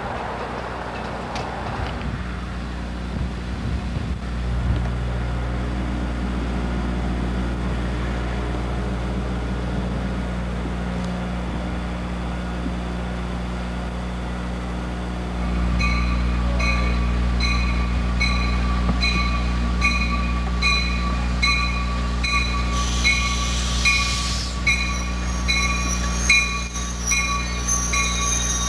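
Brief wind noise on the microphone, then a Metra Electric bilevel electric multiple-unit train running into the station with a steady electric hum. The hum grows louder about halfway through as the train comes alongside, and a ringing repeats a little faster than once a second.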